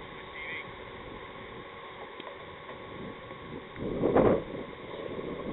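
Wind on the microphone over open-field ambience, swelling into a stronger gust about four seconds in.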